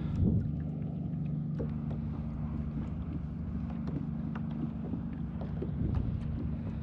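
A boat engine running with a steady low drone, with light ticks and knocks and some wind noise over it.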